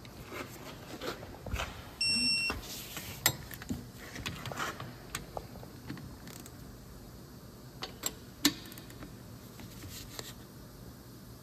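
Electronic torque wrench giving one short, steady beep about two seconds in as a brake caliper bolt reaches its set torque of 20 ft-lb. Sharp metallic clicks of the wrenches on the caliper bolts and slider pins are scattered around it.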